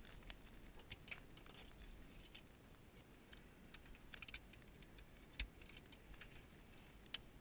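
Faint, scattered clicks and small rattles of a seat belt buckle and strap being handled, with one sharper click about five seconds in and another near the end.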